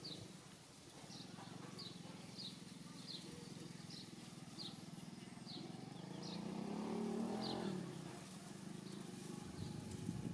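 Outdoor ambience: a small bird giving short high chirps a little more often than once a second. A motor vehicle passes in the middle, its engine swelling and then fading.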